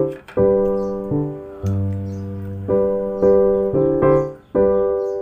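Background piano music: chords struck about once a second and left to ring and fade.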